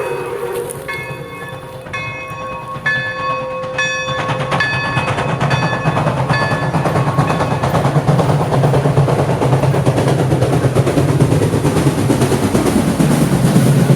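Pere Marquette 1225, a 2-8-4 Berkshire steam locomotive, ringing its bell about once a second for six or seven strikes, which fade over the first half. The rumble of the oncoming train then grows steadily louder.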